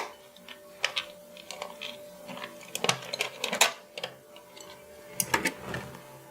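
Irregular light clicks and taps, with sharper clusters about three seconds in and again near five seconds, over a faint steady hum.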